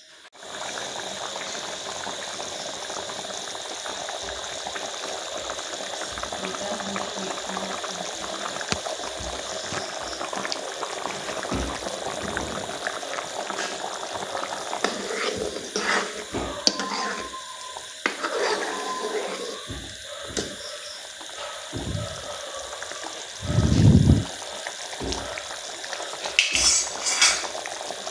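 Chicken curry boiling hard in an iron kadai, a steady bubbling hiss while the gravy is boiled down to reduce the water. In the second half a metal ladle knocks, scrapes and clinks against the pan, with a heavy thump a little before the end.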